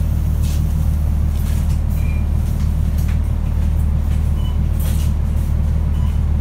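Alexander Dennis Enviro500 MMC double-decker bus's diesel engine running with a steady low rumble, heard from inside the passenger cabin, with light rattles and a few short high beeps.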